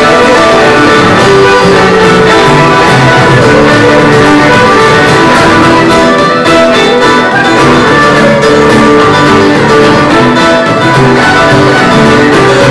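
Live band playing an instrumental passage on fiddle, guitars and keyboard.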